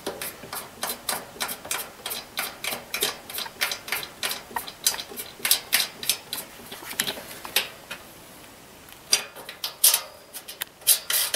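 Quick, light clicking of knurled nuts being spun finger-tight onto the mounting studs of a vending machine auger motor. The clicks come a few per second, pause about two thirds of the way in, then resume.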